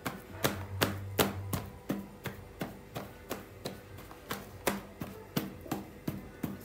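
Wooden masher pounding boiled potatoes in a plastic basin: a steady run of sharp knocks, about three a second, as it strikes through the potato to the bowl.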